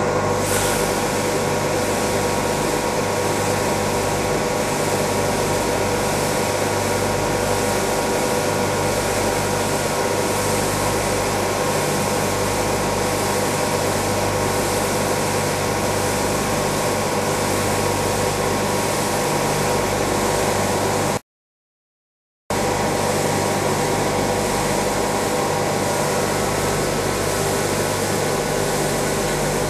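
Bag-filling and stitching packing machine running with a steady mechanical hum made of several fixed tones over a noisy whir. It drops out abruptly for about a second about two-thirds of the way through, then resumes unchanged.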